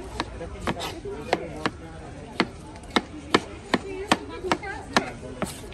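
Kitchen knife chopping a tomato on a plastic cutting board: a dozen or so sharp knocks at an uneven pace, about two a second.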